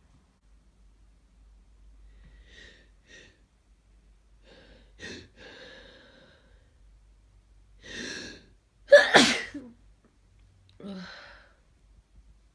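A person with a congested head cold sneezing: a few short breaths build up to one forceful sneeze about nine seconds in, followed by a softer breath out.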